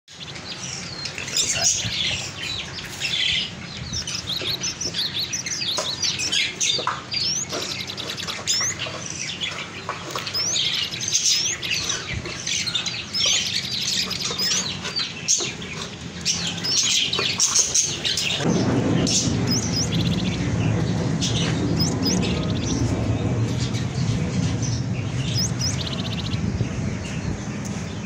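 Many small caged birds chirping, short quick high calls overlapping one another. About two-thirds of the way in, a steady low hum comes in underneath and the chirping thins out.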